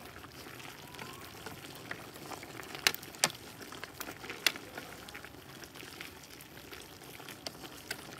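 A large pan of meat stew boiling, a steady bubbling hiss with a few sharp pops, the loudest around three to four and a half seconds in.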